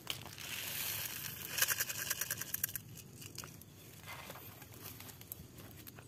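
Dark fertilizer pellets poured from a clear plastic container into a hole in the soil: a dense rattling hiss of pellets that stops about three seconds in, followed by faint rustling.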